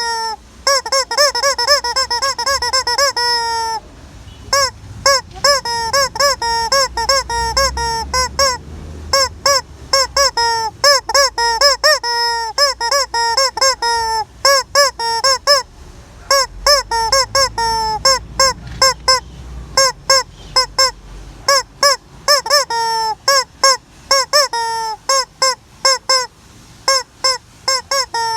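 Rubber squeaky chicken toy squeezed over and over, giving rapid runs of short honking squawks in groups, now and then drawn out into one longer squawk.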